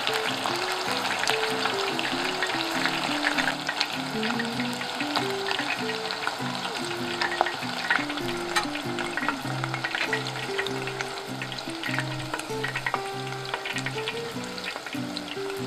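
Battered chicken strips deep-frying in hot oil: a steady, dense sizzle full of small crackles. A light background melody plays underneath.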